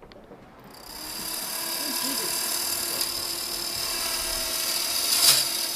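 Newly built PC powering on for the first time: its six Deepcool 120 mm case and radiator fans spin up about a second in into a steady whirr with a faint whine. A single sharp knock sounds near the end, over the running fans.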